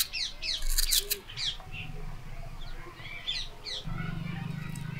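Small birds chirping in quick, falling calls, in a cluster at the start and again a little past the middle. A low steady hum comes in faintly midway and grows stronger near the end.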